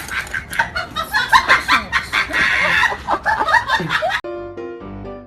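A busy jumble of short chirping and squawking sounds over noise, which cuts off abruptly about four seconds in. Plain background music with held notes follows.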